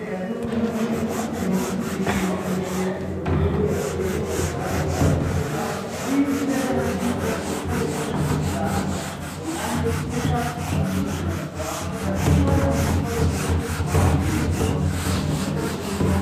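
Whiteboard duster rubbed back and forth across a whiteboard, wiping off marker writing in quick, repeated strokes.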